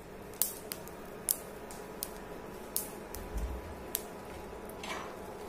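Whole spices (dried chillies, fennel and cumin seeds, peppercorns, star anise) dry-toasting without oil in a hot nonstick pan. They give scattered, irregular sharp crackles and ticks over a steady background hum, with a soft low bump a little past halfway.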